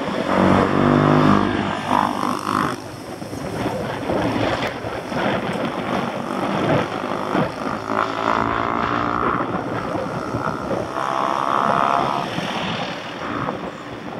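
Road noise on a moving bicycle: wind buffeting the microphone, with a car's engine hum as it passes close alongside in the first couple of seconds. Another steady engine-like hum comes and goes between about eight and twelve seconds in.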